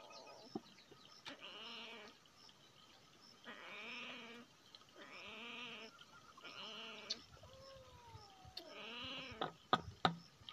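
A domestic cat meowing over and over, about six meows, one of them drawn out and falling in pitch. Near the end come two sharp knocks, the loudest sounds.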